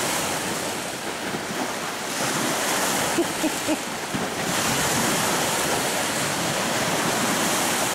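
Lake waves washing and breaking against a rocky shoreline, the surf swelling louder again about halfway through.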